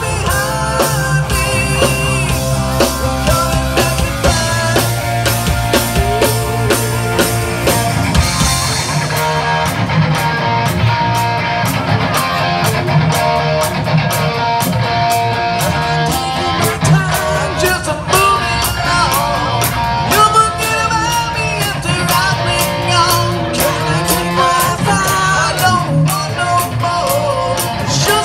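Live rock band playing: electric guitar and drum kit with singing, heard loud through a phone microphone.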